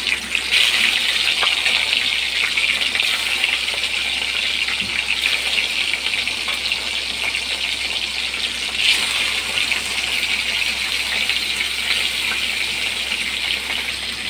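Fish pieces sizzling steadily as they fry in hot oil in a steel kadai, a dense crackling hiss with louder spurts about half a second in and again around nine seconds in.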